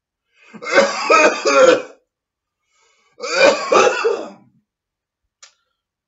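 A man's voice making two loud, rasping throat noises, each about a second and a half long, with a short gap between them.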